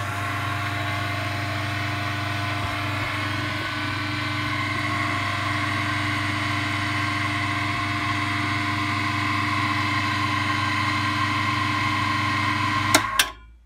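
Clarke Woodworker wood lathe's electric motor started with a click of its push-button switch, then running steadily with a steady hum and whine. It drives through a newly fitted, heat-welded polyurethane belt on the fastest pulley setting. Near the end there are two clicks and it stops, dying away quickly.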